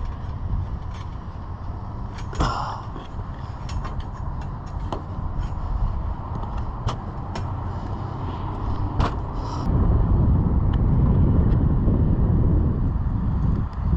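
Steady low outdoor rumble that gets louder about ten seconds in, with scattered small clicks and knocks.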